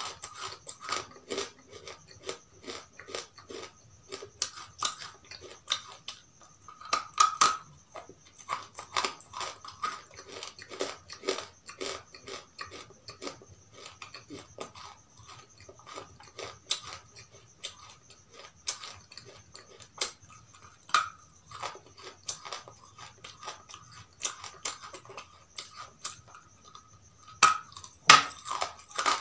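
Close-up biting and chewing of something hard and brittle: many sharp, irregular crunches, a few much louder bites among them.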